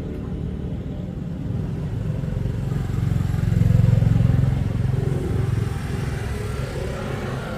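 Small 110cc single-cylinder motorcycle engine running, its revs rising about two and a half seconds in, peaking around four seconds, then settling back.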